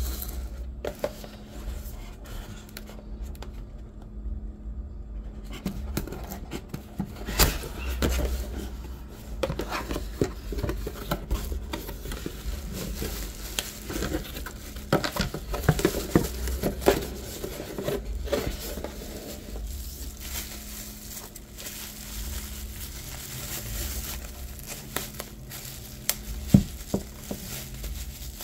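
Cardboard box being opened and handled, then bubble wrap crinkling and rustling as a wrapped fishing reel is lifted out and turned over in the hands, with many small clicks and one sharp snap near the end. A faint steady low hum runs underneath.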